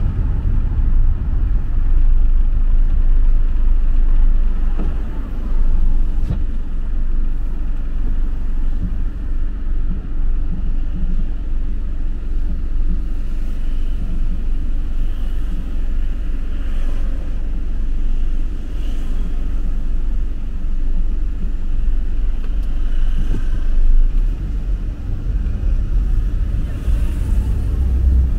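City street ambience: a steady low rumble of road traffic going by.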